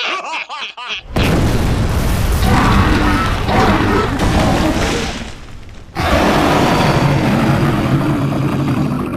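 Cartoon sound effects: a few quick, squeaky vocal chirps, then a loud, long rumbling boom that dips about five seconds in and swells again.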